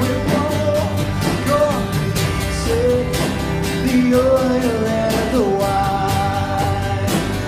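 Live worship band playing a song with guitar, a steady drum beat and singing.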